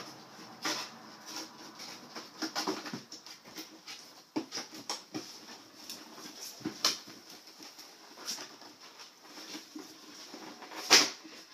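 Packaging being handled: irregular rustles and light knocks, with one sharper knock near the end.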